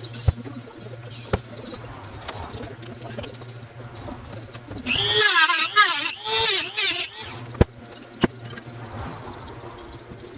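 Power drill run in two short bursts with a wavering, squealing pitch, typical of backing screws out of the layout's benchwork. A few sharp knocks before and after.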